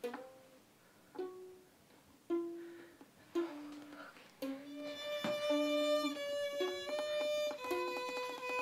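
Violin music: single notes about a second apart that each fade away, then, about halfway through, a slow melody of held bowed notes.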